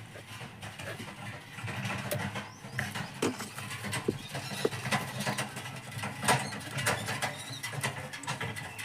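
Scattered small clicks and rustles of wires and small parts being handled, over a steady low hum.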